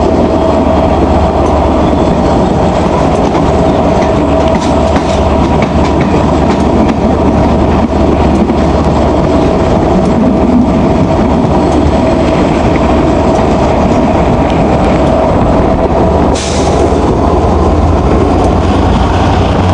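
Class 67 diesel locomotive running at speed, heard from a coach window right beside it: a steady engine hum with a steady whine over it, and the clatter of wheels on the rails. A brief rush of noise comes about sixteen seconds in.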